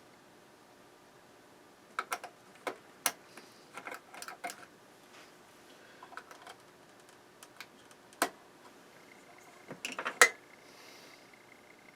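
Scattered sharp clicks and taps of small metal and glass parts as cartridge fuses are worked out of their clips in a stereo receiver's chassis. They come in a cluster a couple of seconds in, a single click about eight seconds in, and a last burst near ten seconds that is the loudest.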